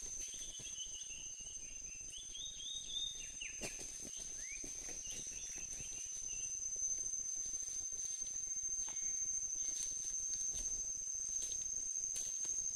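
Insects keeping up a steady high-pitched drone, with a bird calling in a quick run of short chirps during the first few seconds. Scattered sharp clicks and rustles run through it.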